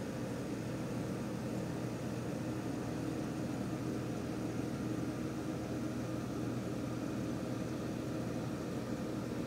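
Steady mechanical hum with a few held low tones under an even hiss, unchanging throughout, like a running appliance or fan.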